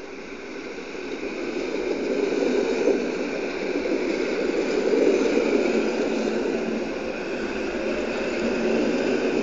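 Electric multiple unit passing close by: a steady rumble of wheels on the rails that grows louder over the first two seconds as the train reaches the microphone, then holds as the cars run past.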